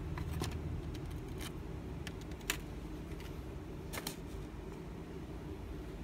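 A few light, sharp clicks and taps as laptop DDR4 memory modules are handled, the sharpest about two and a half seconds in, over a steady low hum.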